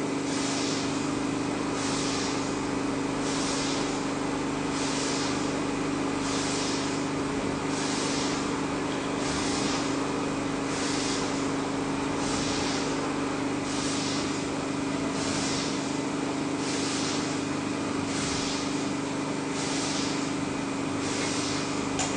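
Steady machine hum with a constant low drone, overlaid by a hiss that swells and fades regularly about every second and a half.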